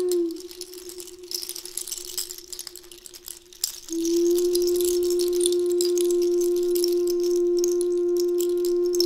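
Taonga pūoro (traditional Māori instruments). One long note is held over a continuous high rattle. The note dips in pitch and falls away about a third of a second in, then returns strongly just before four seconds in and is held steady.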